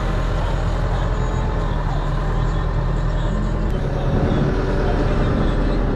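Backhoe loader's diesel engine running steadily under work, its note rising slightly about four seconds in.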